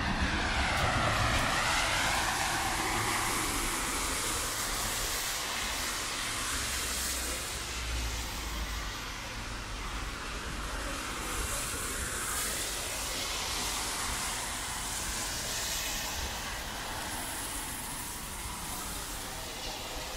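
Traffic on a rain-wet city street: tyres hissing on wet asphalt, with one vehicle passing close by in the first couple of seconds, over a steady wash of rain.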